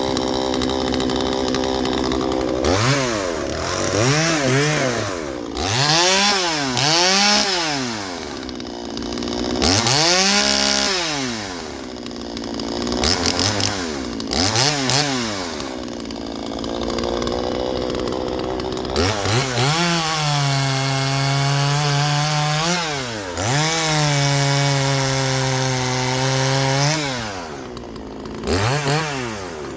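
Two-stroke chainsaw idling, then revved in a series of short blips. It is then held at high revs for two stretches of about three seconds each, with a brief dip between them, and blipped once more near the end.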